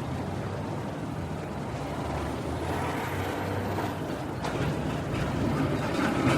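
City street traffic: a steady low rumble of cars, trucks and buses running and passing, growing a little louder near the end, with one sharp knock about four and a half seconds in.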